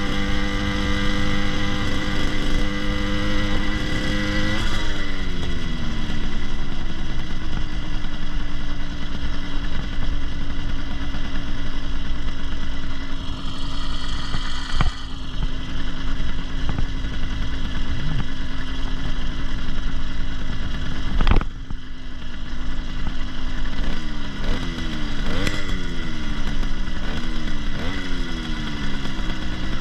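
80cc two-stroke motorized bicycle engine running under way. Its pitch drops about four seconds in and holds steady, then rises and falls several times near the end as the throttle is worked. There is one sharp knock about two-thirds of the way through.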